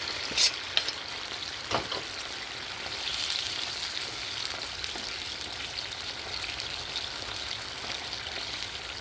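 Chicken livers and adobo sauce sizzling in a nonstick frying pan, a steady hiss of frying. Two sharp knocks come about half a second and two seconds in, and a wooden spoon stirs the pan near the end.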